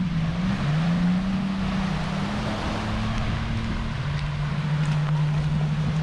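Engine drone whose pitch rises about half a second in and steps down about four seconds in, over small waves washing ashore and wind.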